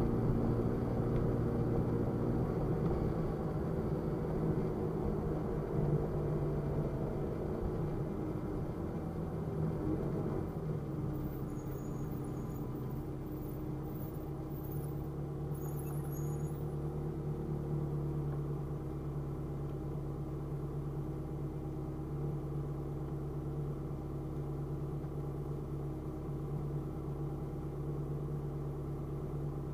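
A car's engine heard from inside the cabin while driving slowly in city traffic. Its note drifts down in the first half as the car slows, then holds a steady low pitch as it comes to a stop.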